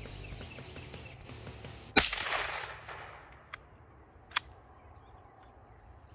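.22 Long Rifle gunshot about two seconds in, a sharp crack with a long fading echo. A shorter, quieter sharp crack follows a little over two seconds later.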